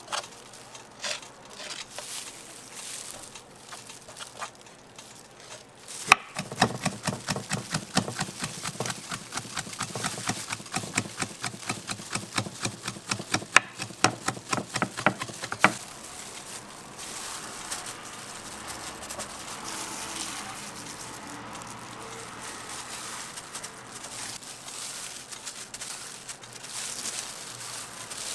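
Fast, even tapping of a utensil during crepe-making, about five strokes a second for some ten seconds, set between stretches of fainter steady hiss and scattered small clicks.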